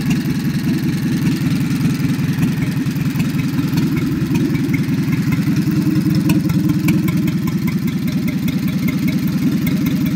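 Coventry Climax type Z petrol engine of a 1940s generating set running steadily at a constant speed, with a faint regular ticking over the steady engine note.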